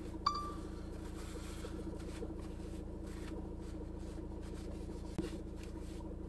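Faint rustling of a tissue wiping rainwater off the plastic body and propeller guards of a DJI Neo 2 drone, with small handling clicks, over a steady low hum in the car cabin. A short ping sounds near the start.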